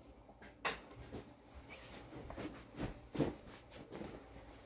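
A cotton pillowcase being handled close by, rustling and flapping as a pillow is worked into it by hand, in several short sharp rustles, the loudest about three seconds in.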